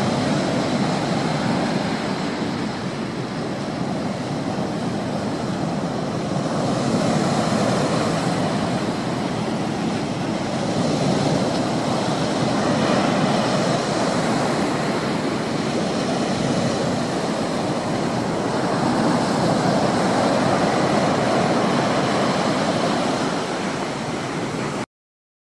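A steady rushing noise with no distinct tones or rhythm, which cuts off abruptly near the end.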